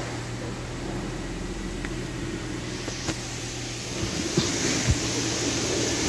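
Nissan Sentra's four-cylinder engine idling steadily after a worn-out cylinder-2 spark plug was replaced, running without a misfire. About four seconds in, a louder hiss comes in with a couple of short knocks.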